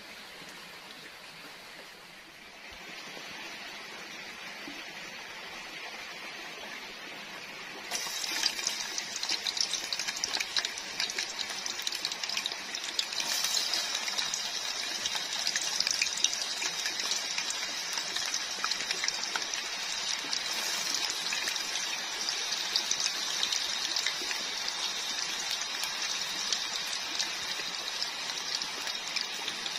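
Potato strips deep-frying in a pan of hot oil: a dense crackling sizzle that starts suddenly about eight seconds in and keeps on steadily, over a fainter hiss before it.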